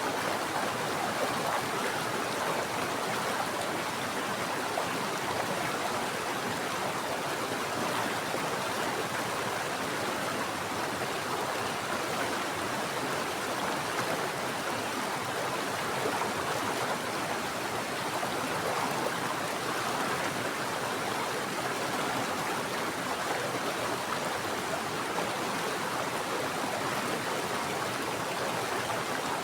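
Mountain stream running steadily, an even rushing of water without breaks.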